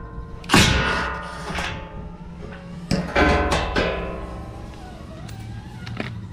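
Background music: a few loud struck chords with drum hits that ring out and fade, quieter in the second half.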